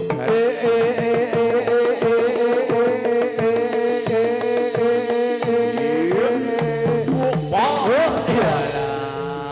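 Live Javanese gamelan music for a jathilan horse dance: a hand drum beats under a wavering, sustained melodic line, with a steady held note beneath. Near the end the melody slides up and down in pitch.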